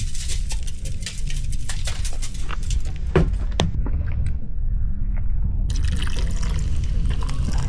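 A drink being poured out, liquid splashing and filling a container, with sharp crackles scattered throughout.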